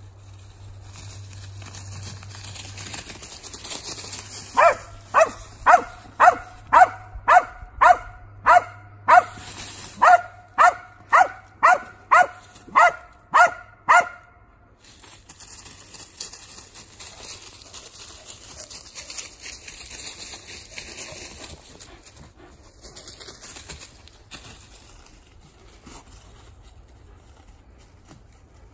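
A dog barking in a steady run of about sixteen sharp barks, nearly two a second, with a pause of about a second halfway through.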